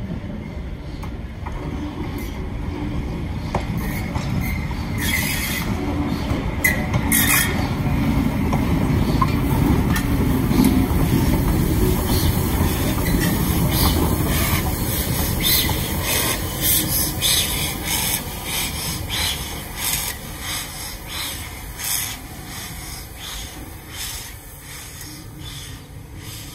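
Merchant Navy class steam locomotive British India Line and its train going by at close range. A rumble of wheels on rail builds to a peak about halfway through and then fades. Over it runs a rapid string of clicks and knocks, thickest as the engine itself passes.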